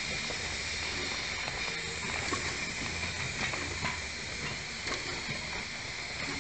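Steam locomotive hissing steadily as it rolls slowly past, over a low rumble, with a few faint clicks along the way.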